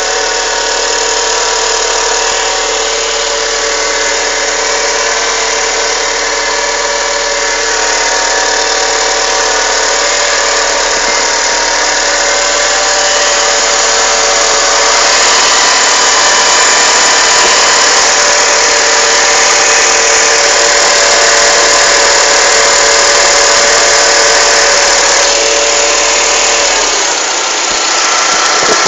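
Volkswagen Voyage engine running with a steady whine of several tones, a little louder in the middle and dipping and changing pitch near the end: the strange noise that appears when the car is accelerated, which a dealer mechanic could not trace to the pulleys or the timing belt.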